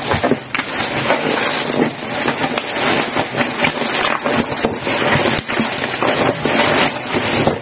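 Plastic parcel wrapping crinkling and crackling as it is handled and opened, a dense run of crackles throughout.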